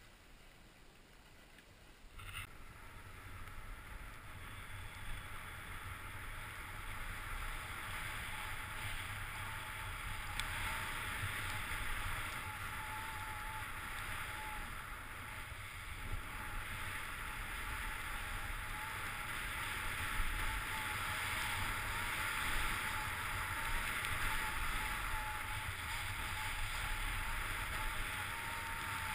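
Downhill skiing on groomed snow: skis hissing and scraping over the snow with wind rushing on the camera microphone, a steady noise that starts suddenly about two seconds in and grows gradually louder as speed builds.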